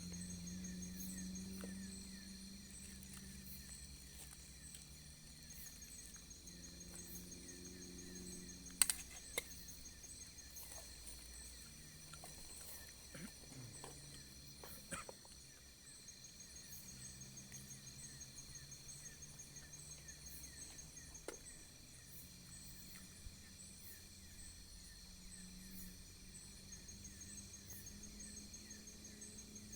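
Faint outdoor night ambience of insects chirping steadily in fast, even pulses, with a few isolated sharp clicks.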